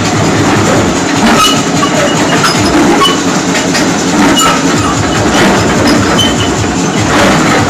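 SANY crawler excavator's diesel engine running hard under hydraulic load, with a continuous metallic clatter from the steel track and undercarriage as the machine tilts and rocks up on its boom and one track.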